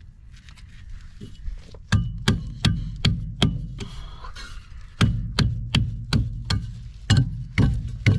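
Hammer blows in a quick series of sharp knocks, about three a second: a first run of four from about two seconds in, then a longer run of about eight from five seconds in.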